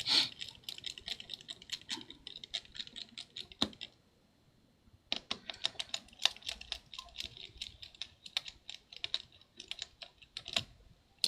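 Precision screwdriver ticking quickly as tiny Torx screws are backed out of a MacBook Pro's screen brackets, in two runs with a break of about a second in the middle and a single sharper knock just before the break.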